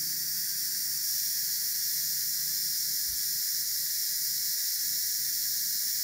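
Steady high hiss with no other sound: background noise in the recording.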